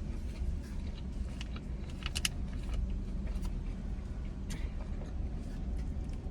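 A spoon clicking and scraping in a takeout rice bowl, a few short clicks with a small cluster about two seconds in, over a steady low rumble.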